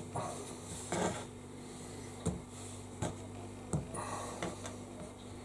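Kitchen knife chopping softened butter on a bamboo cutting board: several short knocks of the blade against the wood at irregular intervals.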